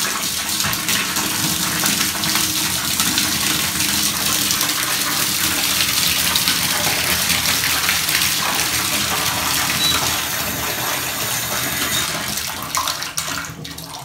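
Water running hard from a bathtub spout into the tub as the faucet is tested with its new valve stems, then dropping off sharply near the end as a handle is turned off.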